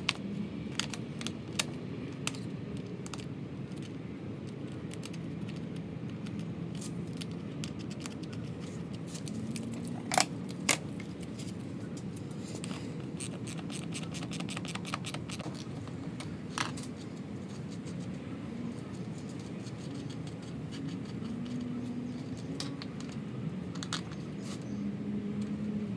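Small metallic clicks and scrapes as battery cable terminals are handled and fitted onto a 12-volt battery, with two sharper clicks about ten seconds in, over a steady low hum.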